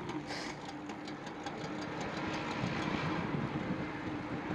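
Street traffic and road noise heard from a moving bicycle: a steady rush with a motor vehicle engine running, getting a little louder about halfway through.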